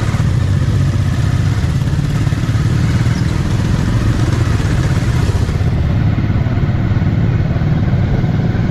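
Motorcycle engine running steadily under way, a low even drone heard from the bike itself, with a hiss of wind and road noise above it that thins a little about six seconds in.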